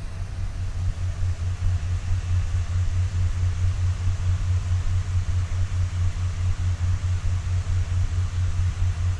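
Electric fan blowing: a steady low hum with a fast, even flutter over a hiss.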